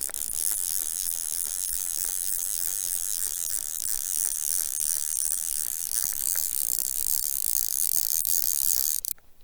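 A steady high hiss that starts abruptly and cuts off suddenly about nine seconds in.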